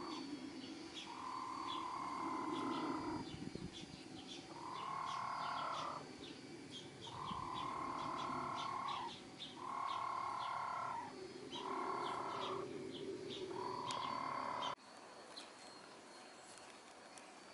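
Birds calling: a drawn-out call, about a second long, repeated six times roughly every two seconds, with quick high chirps over it. The sound drops off sharply about three-quarters of the way through, leaving quieter background hiss.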